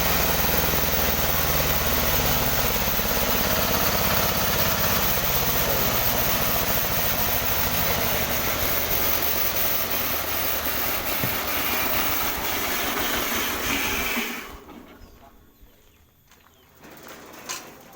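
The engine of a newly assembled sawmill machine running steadily on a test run, then shut off about fourteen seconds in and falling quiet quickly. A single short knock comes near the end.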